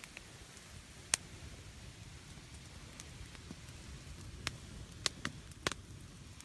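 Faint low background noise with about six sharp clicks, one about a second in and the rest in the second half.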